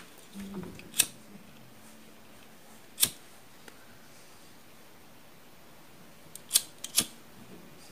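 Hand wire cutters snipping through motorcycle wiring: four sharp snips spread out, the last two close together near the end.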